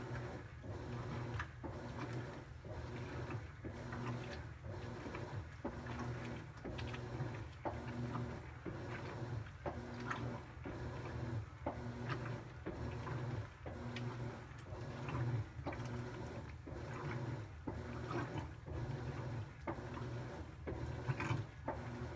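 Top-load impeller washer agitating during the wash: the motor drives the wash plate back and forth in short, regular strokes, a little more than one a second, with a low motor hum and the churning of sudsy water and clothes.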